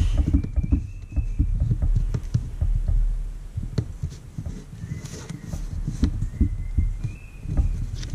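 Hands working close to the mic on a desktop, rubbing an eraser and its crumbs over paper: a quick, irregular run of low rubbing strokes and light bumps, with a faint short squeak now and then.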